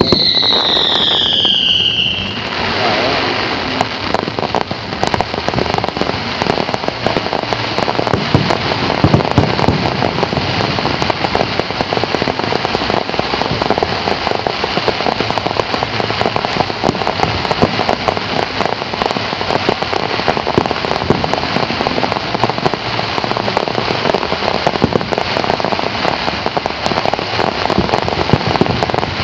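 Aerial fireworks: a falling whistle in the first two seconds, then dense, continuous crackling made of many small pops, like heavy rain.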